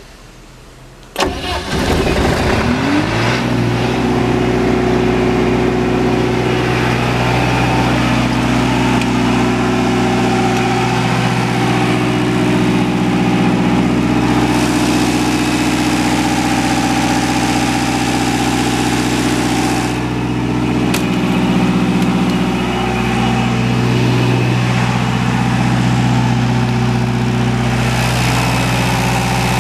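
Perkins 4.236 four-cylinder diesel engine of a 40 kW generator starting about a second in: it turns over, catches with a quick rise in pitch, and settles into a steady run.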